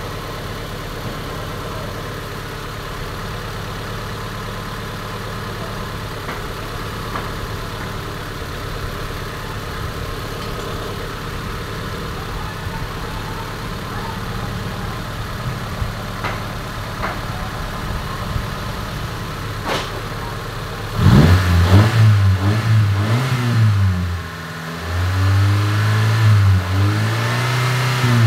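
Honda Civic D15B four-cylinder engine idling steadily, warming up after a cylinder head replacement. About 21 seconds in it is revved up and down several times in quick blips, then held up in a longer rev near the end.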